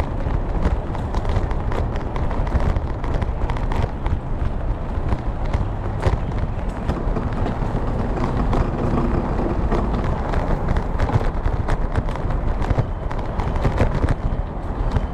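Wind buffeting and road rumble picked up by a camera mounted on a moving bicycle, a steady low rush with frequent small rattles and knocks from bumps in the road.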